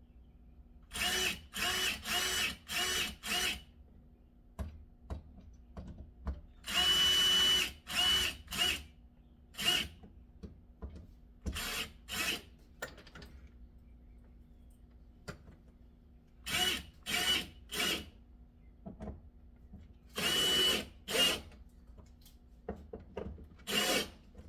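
Cordless drill/driver running in short bursts of steady whine, several quick pulses at a time with pauses between, as screws are driven in to mount a door lock.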